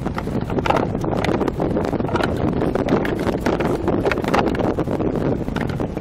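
Wind buffeting the microphone on a small boat under way over choppy sea, with irregular slaps of water against the hull.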